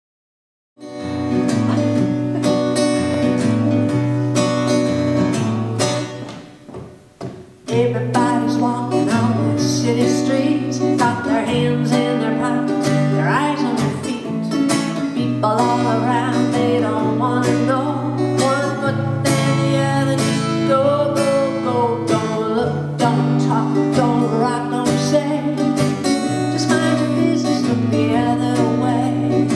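Live solo folk performance: an acoustic guitar strummed in a steady rhythm with changing bass notes, and a woman singing over it. The playing starts about a second in and briefly falls away around six to seven seconds in before picking up again.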